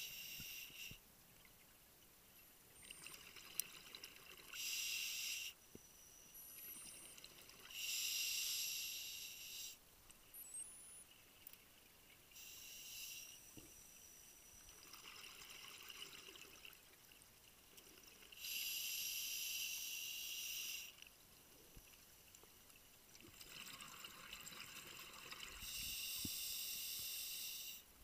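Scuba diver breathing underwater through a regulator: bubbling, hissing breaths, each lasting one to two seconds, come in a slow rhythm every few seconds.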